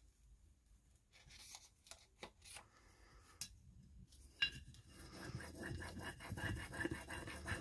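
Fingers and a small burnishing tool rubbing a rub-on transfer sheet against a glass jar: faint, scratchy rubbing that is nearly silent at first and grows busier in the second half, with a sharp click about four and a half seconds in.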